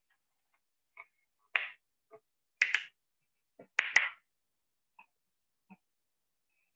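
A scattered series of short, sharp clicks or taps on near silence. The loudest come in quick pairs about three and four seconds in.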